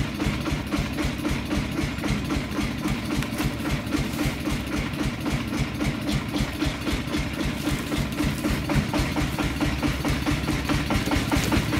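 A heavy engine running steadily at idle, with a rapid, even pulse and no change in speed.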